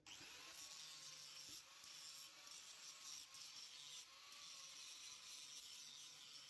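Handheld angle grinder grinding steel: a steady high hiss with a faint whine that wavers in pitch.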